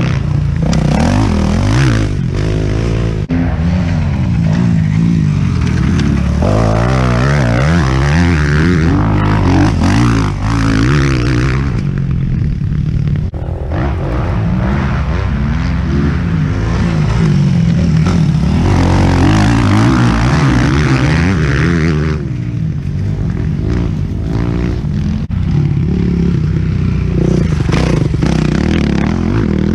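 Four-stroke motocross bike engine being ridden hard, its pitch climbing again and again as the throttle is opened and dropping as it is shut off. It eases off about twelve seconds in and again a little past twenty seconds in before picking back up.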